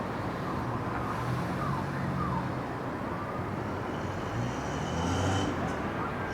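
Steady outdoor city rumble with a low engine-like hum, like road traffic, and no firework bangs.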